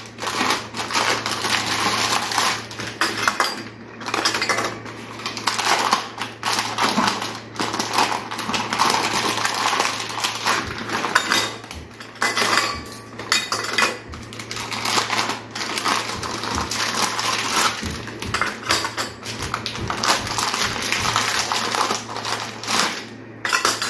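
Kitchen containers, lids and utensils clattering and knocking as they are handled and set in place, with a low steady hum underneath.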